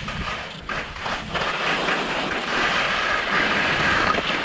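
Skis hissing as they slide through fresh snow on a downhill run, over a low rumble of wind on the microphone; the hiss grows louder a little over a second in.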